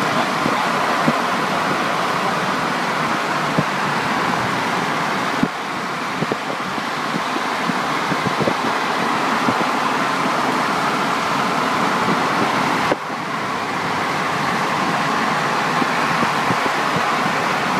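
Steady road and wind noise of cars travelling side by side at highway speed, tyres humming on the road surface, with no distinct engine note standing out.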